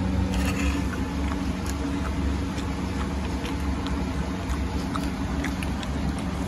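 A steady low mechanical hum, like a motor running continuously, with a few faint light clicks over it.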